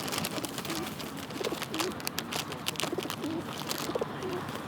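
Feral pigeons cooing in short low notes, with many sharp clicks among them.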